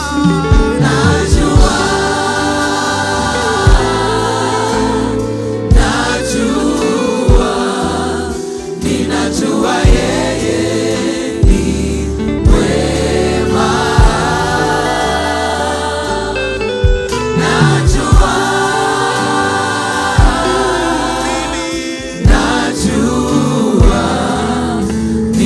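Gospel choir and worship band performing a song, many voices singing together, with sharp drum hits punctuating the music.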